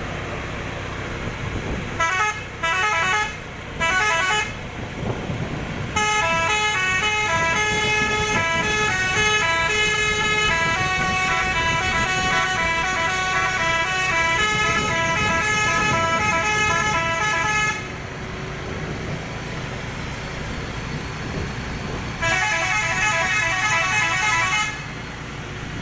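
Multi-tone musical horn on a modified Mitsubishi Fuso dump truck playing tunes. Three short blasts come a couple of seconds in, then a long melody of changing notes lasts about twelve seconds, and near the end a burst of quickly alternating notes follows, over a steady low rumble.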